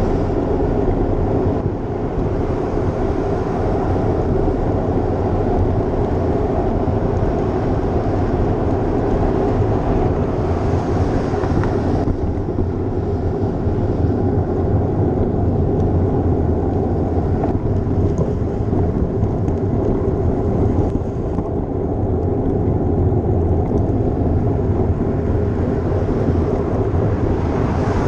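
Steady wind buffeting a GoPro microphone on a moving bicycle, mixed with tyre and road noise, heavy in the low range. A brighter hiss rises briefly about ten seconds in and again near the end.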